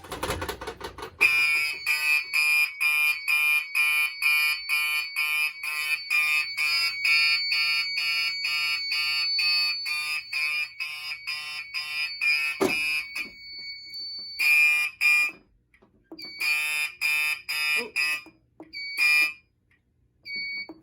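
A 1986 first-generation Gentex SHG fire alarm horn, taped over to soften it, sounding in rapid march-time pulses after a sharp clack as an FCI MS-6 pull station is pulled. About 13 seconds in the horn cuts out, then comes back in a few short, broken bursts.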